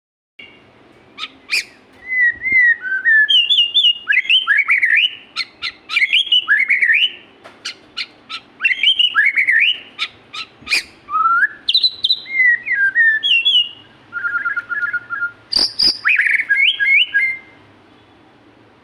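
White-rumped shama (murai batu) singing a long, varied song of loud whistled phrases, quick sliding notes and sharp clicks, with a run of rapid repeated notes near the end.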